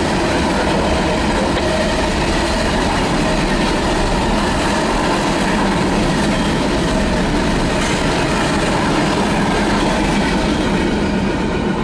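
CSX local freight train rolling past, a loud, steady rumble of its wheels on the rails.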